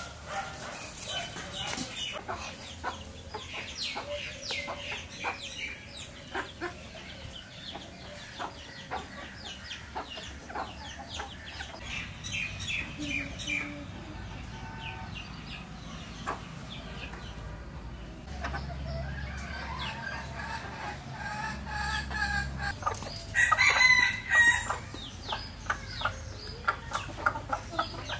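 Domestic chickens clucking while pecking scattered grain, with many quick beak taps on hard ground. A rooster calls, and a short, loud run of calls comes about three-quarters of the way through.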